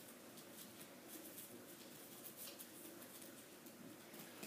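Near silence with faint, brief scratching and tapping sounds: fingers rolling a dough ball in breadcrumbs in a small plastic tray.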